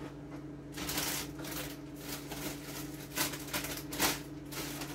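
Carrots being added to a pot of collard greens: rapid rustling and light rattling of the pieces, with two louder knocks about three and four seconds in.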